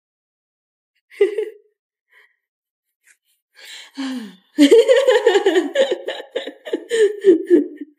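A woman laughing: a loud, rhythmic run of laughs from about halfway through, after a short vocal sound about a second in.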